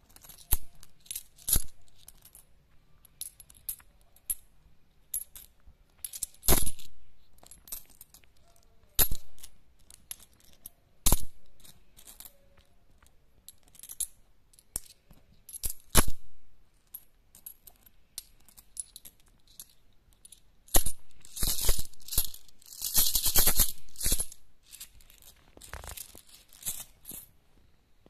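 Pakistani rupee coins clinking as they are dropped a few at a time onto a pile of coins on a cloth, in separate sharp chinks. About three quarters through comes a dense run of jingling as a handful spills out together.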